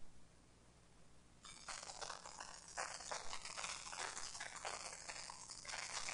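Faint irregular crackling and rustling noise that starts about a second and a half in.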